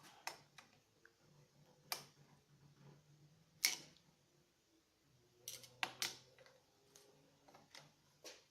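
Scattered sharp metal clicks and knocks, about seven in all, the loudest a little under four seconds in, as a wrench, nuts and studs are handled on the intake manifold adapter. A faint low hum runs underneath.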